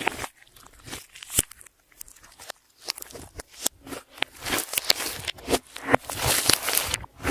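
Clear slime being squished and worked by hand: irregular sticky clicks, pops and crackles, with short noisy bursts that come and go.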